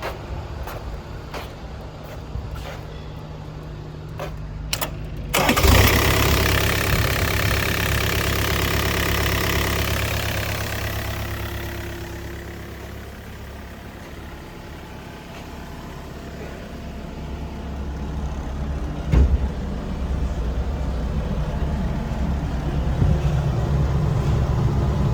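Takeuchi TB250 compact excavator's diesel engine idling with light clicks, then throttled up sharply about five seconds in. It runs high, eases down around the middle and climbs again toward the end, with a single knock about three-quarters of the way through.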